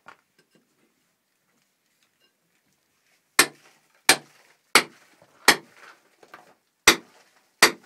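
Hammer blows, sharp clinking strikes repeated six times about three-quarters of a second apart, beginning about halfway in.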